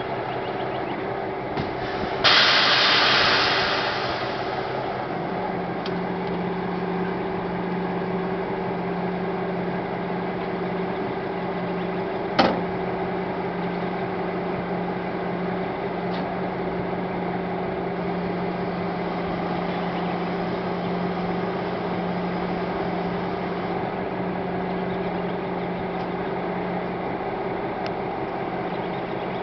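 The auger on a seed and fertiliser tender trailer running steadily with its drive, a mechanical drone with a constant hum, conveying seed and fertiliser into an air seeder's bin. A loud hiss about two seconds in fades over a couple of seconds, a lower hum joins a few seconds later, and there is a single sharp clank about halfway through.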